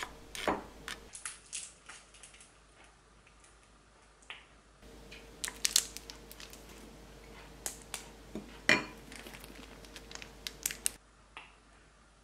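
Kitchen prep handling: sweet corn kernels dropping from a metal strainer into a glass bowl, then a wooden spoon scooping mayonnaise and knocking against the bowl, heard as scattered light clicks and taps with one sharper knock about three-quarters of the way through.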